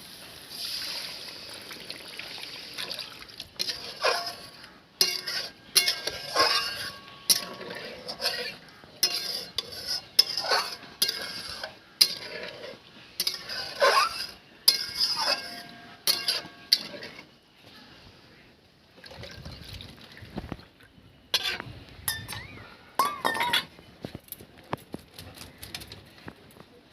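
A metal spoon clinking and scraping against a cooking pan as a curry masala is stirred, with many sharp clinks, quieter stretches and a sizzle in the first few seconds.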